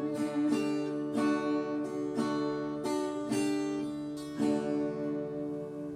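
Acoustic guitar music: chords struck every half second or so and left ringing, fading near the end.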